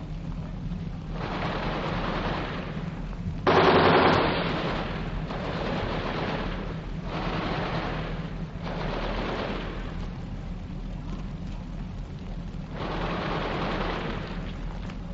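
Churchill tanks' Besa machine guns firing in bursts of a second or two, about six in all, the loudest about three and a half seconds in, over a steady low rumble.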